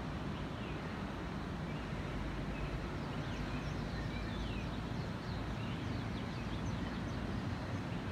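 Birds chirping faintly, in short scattered calls from about three seconds in, over a steady low rumble of city ambience.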